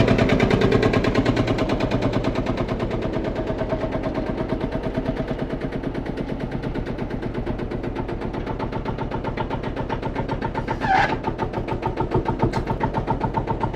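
Field Marshall tractor's single-cylinder two-stroke diesel running with a fast, even beat of sharp exhaust pops as the tractor is driven slowly.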